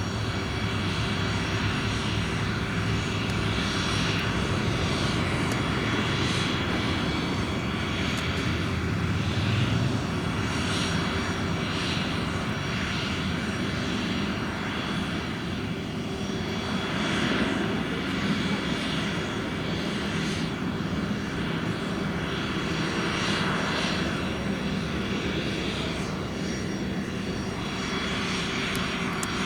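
Twin Williams FJ44-3A turbofans of a Cessna Citation CJ2+ business jet running steadily, a continuous jet rush with a steady whine that swells and eases slightly.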